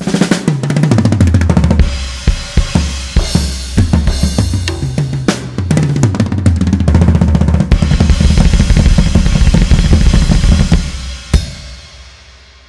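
Instrumental music with a drum kit playing busy fills of bass drum, snare and cymbals over a deep bass line. A last hit about 11 seconds in rings out and fades away near the end.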